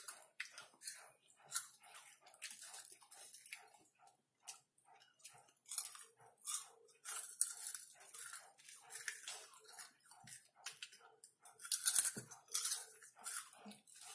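Close-miked chewing of caramel-coated popcorn: a steady run of crisp crunches, about two or three a second, louder for a moment near the end, with the rustle of a hand picking popcorn from the bowl.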